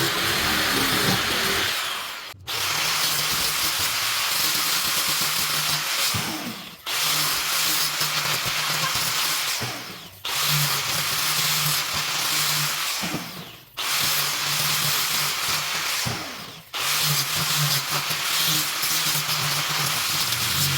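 Handheld electric power tool run in repeated passes of about three to four seconds. Each pass winds down briefly as the trigger is released, then the tool starts again sharply, about five times.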